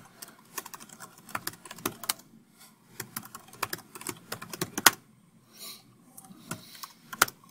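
Typing on a computer keyboard: irregular runs of key clicks, with a short pause about five seconds in.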